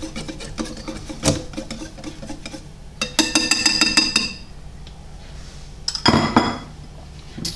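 Wire whisk stirring thick fish batter in a ceramic bowl, with quick clinks and scrapes of metal against the bowl. There is a brief ringing rattle about three seconds in and another short ring about six seconds in.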